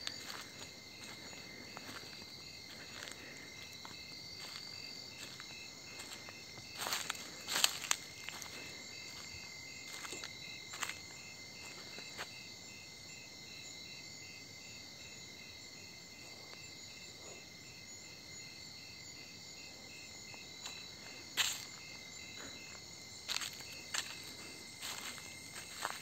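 Night insect chorus: several steady high trills, with one insect chirping in an even pulse about twice a second. A few scattered footsteps sound on a dirt track.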